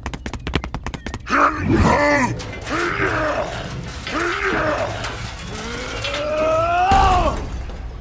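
A quick run of sharp clicks in the first second, then a man's voice groaning and grunting with effort in several strained heaves, ending in a long groan that rises in pitch about seven seconds in: the sound of straining to lift a heavy load.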